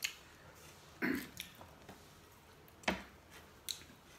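Quiet eating sounds from people eating roti with butter chicken: a few scattered mouth clicks and smacks, a short throaty sound about a second in, and a sharper click near the three-second mark.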